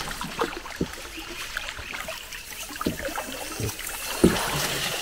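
Light splashes and a few short knocks of a fishing lure being worked across the water surface from a small boat, with faint trickling water.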